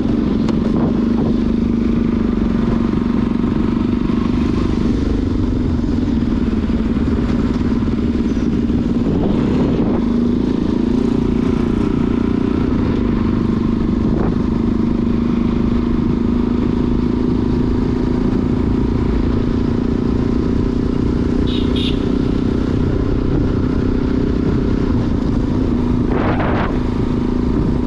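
Motorcycle engine running at a steady speed while riding, a constant drone over a dense low noise of wind and road. A short high chirp sounds about three-quarters of the way through.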